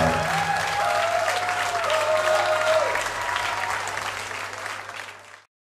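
Audience clapping and cheering after a live rock song ends, fading out to silence near the end.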